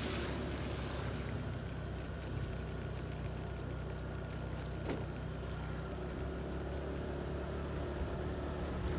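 Motorcycle engine running steadily at low speed, a low even hum, with a faint hiss over it.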